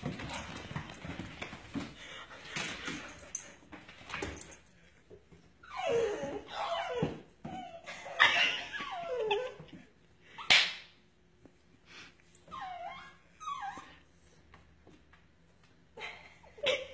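Two dogs at play: paws scrabbling and thumping on a hardwood floor for the first few seconds, then a string of short whines and yips with a few barks, one of them sharp and loud about ten seconds in.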